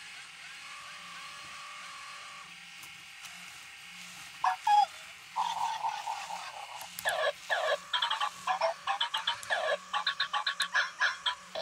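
iDog robotic toy dogs making electronic chirps and beeps as they are handled, ending in a quick string of bark-like blips over the last few seconds.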